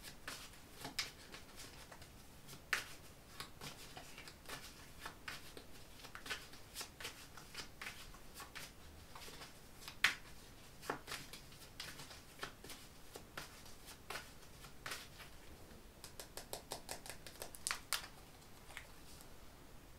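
A deck of tarot cards being shuffled by hand: quiet scattered card snaps and flicks, with a quick run of them near the end.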